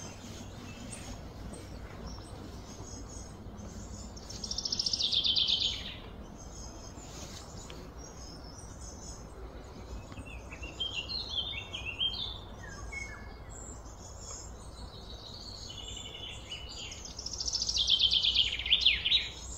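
Birdsong: a loud, rapid trill of quick repeated notes falling in pitch, about four seconds in and again near the end, with scattered short chirps in between, over a steady outdoor background hum.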